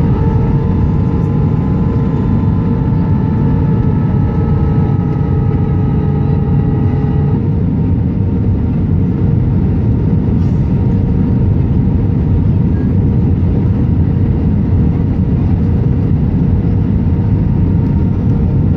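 Steady cabin roar of an Airbus A319 on approach, from its twin engines and the airflow over the fuselage, with a steady hum throughout. A fainter higher whine stops about seven seconds in.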